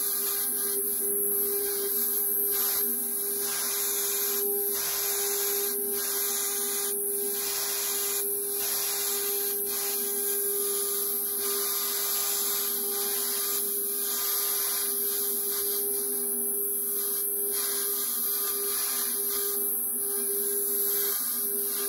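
DeWalt plunge router with a dome cutter running at a steady high whine while it is plunged over and over into Valchromat board to cut dimples. The cutting hiss dips briefly about once a second between plunges.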